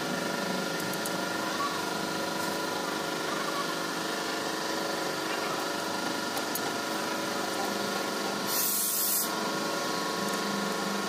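Faint clicks of hand tools on the rocker-arm adjusting screws of an Isuzu 4JB1 diesel's valve gear during a tappet clearance adjustment, over a steady background hum. A short burst of hiss, lasting under a second about eight and a half seconds in, is the loudest sound.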